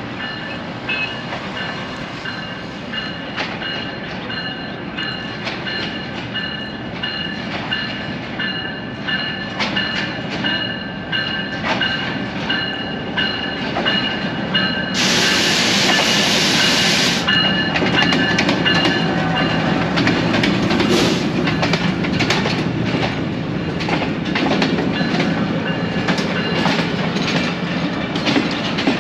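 Passenger train pulling through the station: wheels clicking over rail joints with a steady high metallic ringing, growing louder. About halfway through there is a loud burst of hissing lasting about two seconds.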